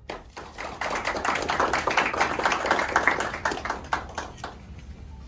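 A small audience applauding, the clapping growing fuller about a second in and dying away near the end.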